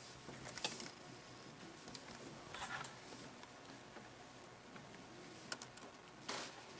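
Faint handling sounds: a few light clicks and short rustles, scattered a second or two apart, as computer parts are handled on the bench.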